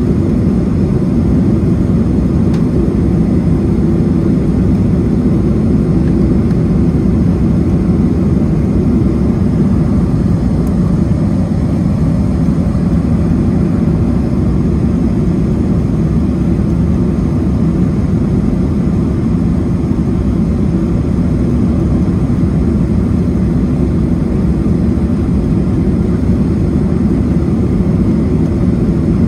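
Boeing 737-200's Pratt & Whitney JT8D turbofan engines and airflow heard from inside the cabin beside the wing, a loud, steady drone on approach with the flaps down.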